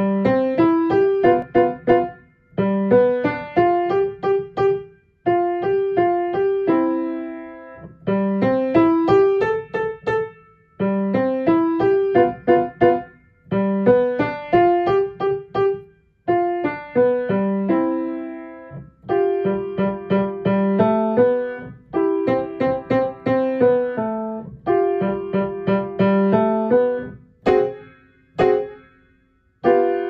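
Baldwin piano playing a short, lively piece in phrases of quick, detached notes, each phrase about two to three seconds long with a brief pause between phrases. Near the end come two sharp high notes, then a final chord that rings on.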